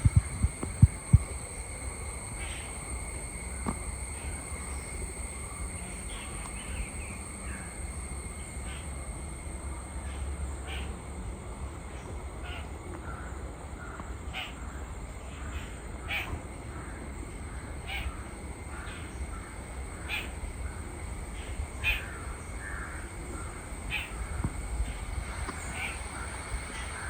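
Outdoor countryside ambience with birds calling, short calls repeating every second or two, over a steady high-pitched whine and a low rumble. A few sharp knocks come in the first second.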